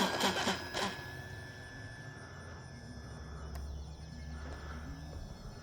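Electric motor and propeller of an FMS Cessna 182 RC plane, fading over the first second as it climbs away from a touch-and-go, leaving a faint steady distant whine.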